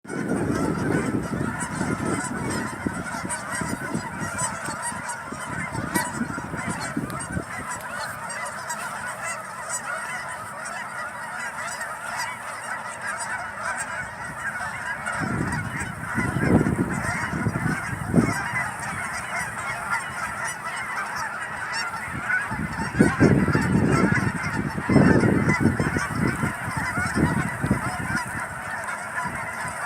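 Many Canada geese honking continuously, their calls overlapping in a dense chorus. A few low rumbles come and go, the loudest about three-quarters of the way through.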